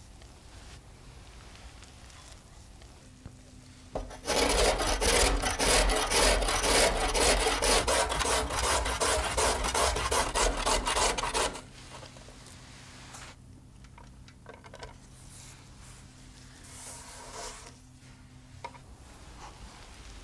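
Carrot being grated on a stainless steel box grater: a run of rapid, even rasping strokes starting about four seconds in and stopping abruptly after about seven seconds. Before and after, faint rustling as grated vegetables are handled.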